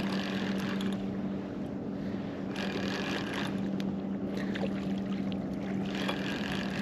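Boat motor running steadily with a low hum under water and wind noise, and two stretches of brighter hiss, about three seconds in and near the end.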